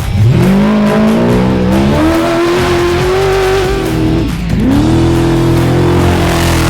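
Off-road race truck's engine revving hard at full throttle. The pitch climbs, dips sharply about four seconds in, then climbs again and holds high.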